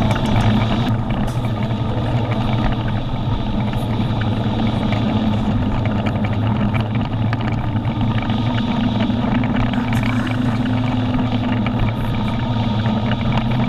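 Kawasaki Z750R's inline-four engine running steadily as the motorcycle rides along, with wind and road noise.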